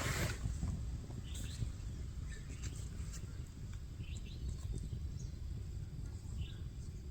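Outdoor ambience: an uneven low rumble of wind on the microphone, with a few short bird chirps scattered through.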